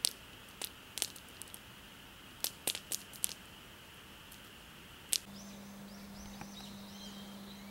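Campfire crackling, with sharp irregular pops over a steady high hum. About five seconds in, this cuts to birds singing over a low steady hum.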